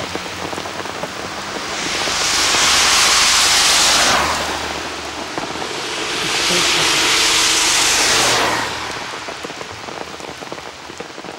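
Vehicles passing on a rain-soaked road: tyre spray swells and fades twice, about two and seven seconds in, over a steady wet hiss.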